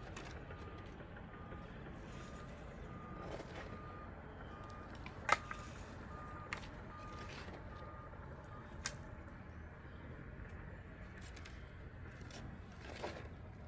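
A vehicle's reversing alarm beeping: a regular run of short beeps on one pitch that stops a little over halfway through, over a low steady rumble. A sharp knock about five seconds in is the loudest sound, with a couple of fainter knocks after it.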